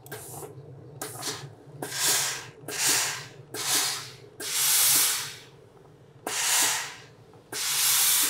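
Steam iron on a steam-generator hose puffing steam in about seven short hissing bursts while a folded fabric edge is pressed, several bursts starting with a click, over a steady low hum.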